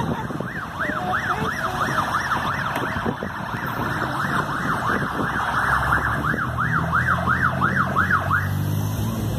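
Emergency vehicle siren on a fast yelp, its pitch rising and falling about three times a second, cutting off near the end. A vehicle engine hum grows beneath it in the second half.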